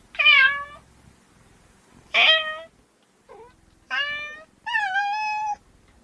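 Kitten meowing repeatedly: four clear meows about a second apart, with a faint short one between the second and third. The last meow is drawn out for nearly a second.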